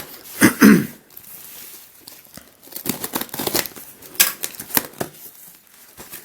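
Packaging being torn open and crinkled by hand, with irregular rustles and sharp clicks, busiest in the second half.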